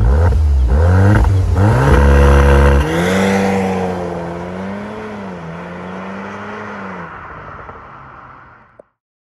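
VW Golf R Mk8's turbocharged 2.0-litre four-cylinder breathing through an Akrapovic exhaust, revving and accelerating hard as the car pulls away. The revs climb, drop sharply about three seconds in, then settle into a steadier, wavering note that fades as the car drives off and cuts off just before the end.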